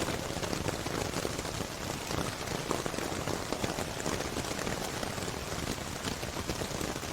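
Rain sound effect: steady rainfall, a dense even patter of drops hitting a surface, with no music over it.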